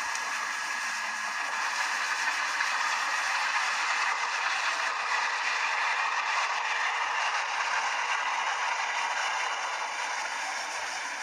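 A train running past at a railway level crossing: a steady rattle and clatter that eases slightly near the end.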